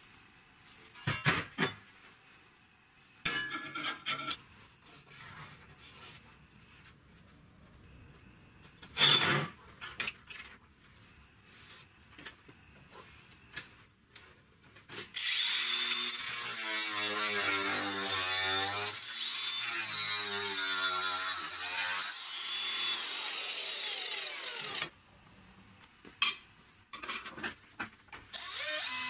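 Sheet steel and a steel strip being handled on a workbench, with a few sharp clanks and brief scrapes. About halfway through, a power tool cuts the steel for about seven seconds, its pitch sagging and recovering under load. Near the end a cordless drill with a step bit starts boring into the steel.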